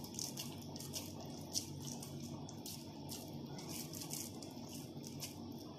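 Faint handling sounds of hands pressing and shaping minced-meat kofta on a tray: soft squishing and light ticks, one a little louder about a second and a half in, over a faint steady low hum.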